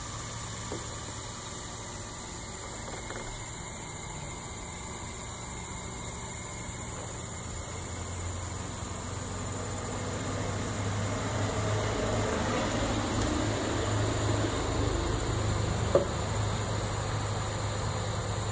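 Steady mechanical hum and hiss with a faint high whine, growing louder about halfway through, with a single sharp click near the end.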